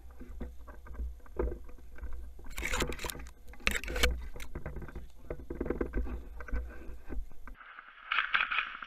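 Handling noise from a body-worn action camera: gear, gloves and rifle rustle, rub and knock against it over a low wind rumble, loudest about three to four seconds in. Near the end the sound changes abruptly to a short stretch of sharper, brighter noise.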